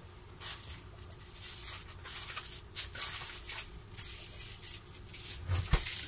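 Scratchy rustling and scraping of small parts and plastic packaging being handled on a workbench, in short irregular bursts, with a soft thump near the end.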